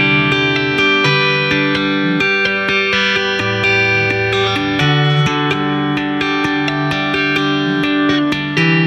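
Electric guitar played flat on the lap with two-handed tapping on the fretboard: a steady stream of quick ringing tapped notes, several a second, over a low bass note that changes every second or so.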